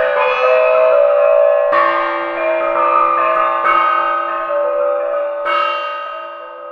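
Slow music of struck, bell-like tones that ring on and overlap, a new strike every second or two, fading out toward the end.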